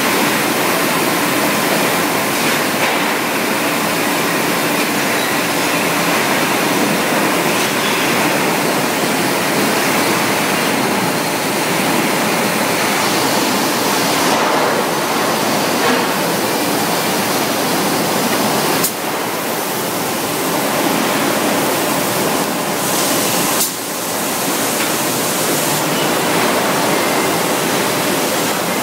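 Loud, steady industrial din of a metalworking factory floor, an even hiss-like noise with no clear rhythm. It dips briefly twice in the last third.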